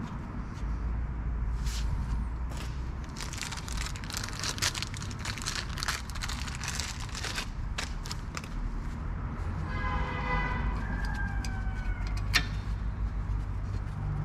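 Metal clicks and knocks from hand work on a car's front disc brake caliper, thickest in the first half, over a steady low rumble. About ten seconds in, a short whining tone slides slightly down in pitch and ends at a sharp click.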